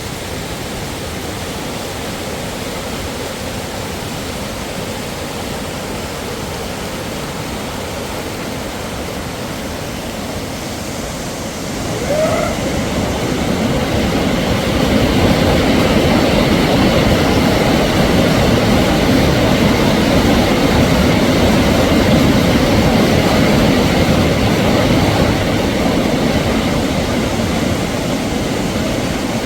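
Waterfall: a steady rush of falling water, growing louder about twelve seconds in.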